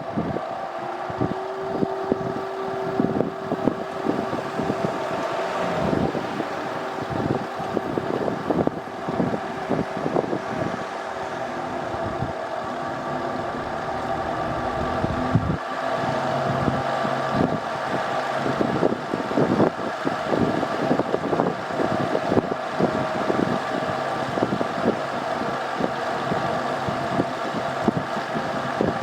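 Air-conditioner outdoor unit's fan motor running with a loud, irregular clattering rattle over a steady hum: the abnormal noise that the uploader traces to the motor's bearings after the unit was half submerged in floodwater. A steady tone under the rattle stops about a third of the way in.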